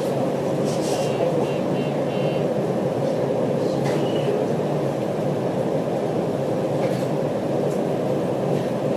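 Steady hum and rush of a stopped train's onboard equipment, heard inside the carriage, with a few faint ticks.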